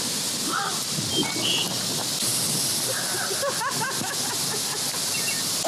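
Steady hissing outdoor background noise, with faint distant voices in the second half and a short high chirp about a second and a half in.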